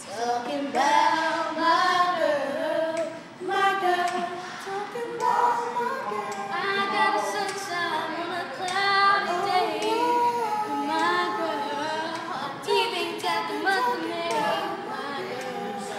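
A group of boys singing a cappella, several young voices together without any instruments.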